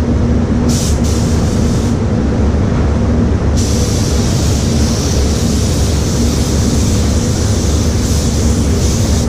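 HVLP-style gravity-feed spray gun hissing as it sprays clear coat onto a car bumper: a short spell about a second in, then steadily from about three and a half seconds on. Under it runs the steady low rumble of the paint booth's ventilation.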